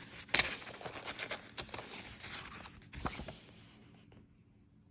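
Several pages of a graphic novel being turned by hand: paper rustling and scraping for about three seconds, with a sharp snap of a page near the start and another knock about three seconds in.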